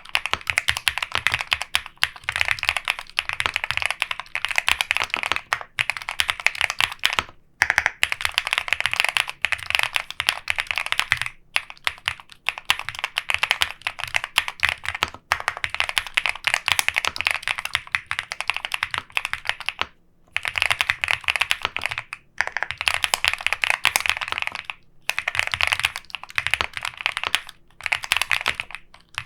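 EPOMAKER P75 mechanical keyboard being typed on fast and steadily, a dense run of key clacks broken by a few short pauses.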